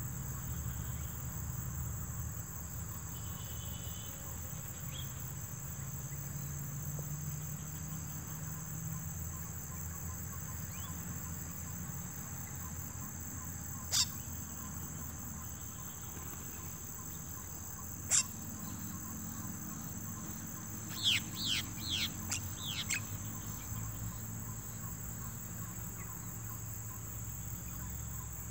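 Steady high-pitched trill of crickets or other insects, with a few short, quick falling bird chirps about three-quarters of the way through and two sharp clicks midway.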